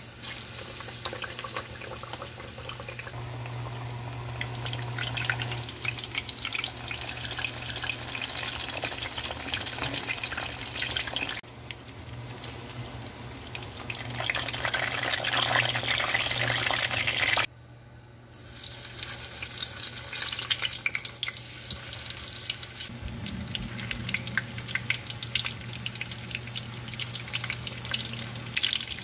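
Breaded pork cutlets (cheese tonkatsu) shallow-frying in hot oil, a dense steady crackle and sizzle. The level drops abruptly twice, about a third of the way in and a little past halfway.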